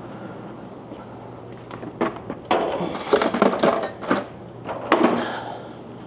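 Clattering and rattling of small objects being rummaged through in a box, in several bursts starting about two seconds in, over a low steady hum.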